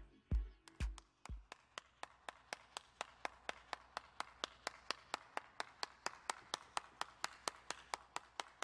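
One person clapping hands in a steady, even rhythm of roughly four to five claps a second. The last bass beats of an electronic music track fade out in the first second or so.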